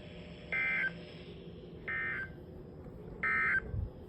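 NOAA Weather Radio EAS/SAME end-of-message data bursts: three short identical digital bursts about 1.3 s apart, over the radio's steady background hiss. They are the end-of-message code that closes the required weekly test broadcast.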